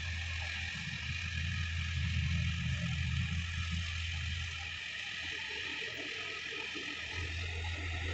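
Sonalika DI-50 RX tractor's diesel engine running under load while dragging a rotary tiller through dry soil, with a steady high hiss over it. The engine hum eases off about five seconds in and picks up again near the end.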